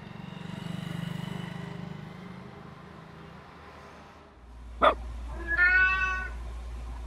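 A low steady hum, then a deep drone comes in, with a sharp pop about five seconds in, followed at once by a single cat meow, the loudest sound here.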